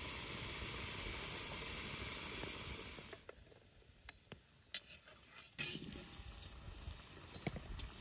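Potato chunks frying in oil in a cauldron, a steady dense sizzle for about three seconds. It then drops off, a few sharp clicks of a metal skimmer against the pan are heard as potatoes are lifted out, and a softer sizzle resumes near the end.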